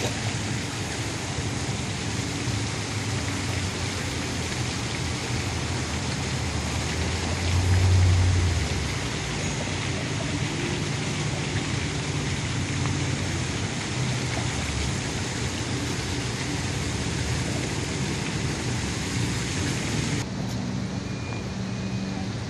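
Steady rushing of water pouring over and through the closed upper gate of a canal lock, with a low rumble underneath that swells briefly about eight seconds in. Near the end the rushing drops away, leaving a quieter low hum.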